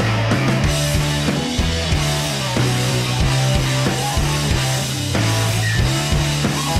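Rock music soundtrack with drums and a bass line keeping a steady beat.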